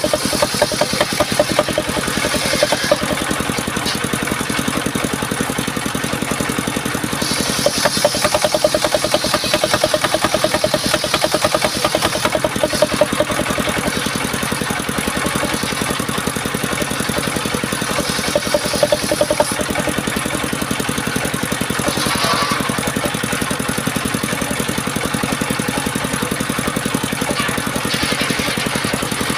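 Engine-driven homemade circular sawmill running steadily, with a hissing cutting noise swelling up several times as the blade works through the wood.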